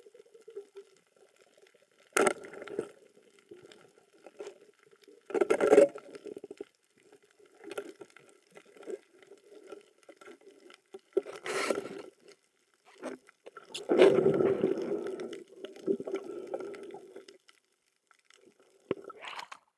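Underwater water noise picked up by a camera in its housing: irregular muffled bubbling and sloshing bursts several seconds apart, with a longer gurgling stretch a little past the middle.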